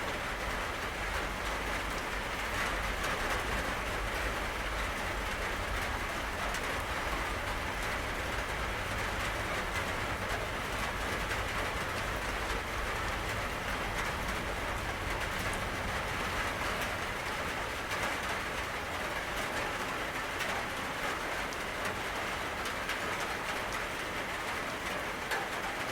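Steady rain, a dense even patter of drops, over a low rumble that fades away in the second half.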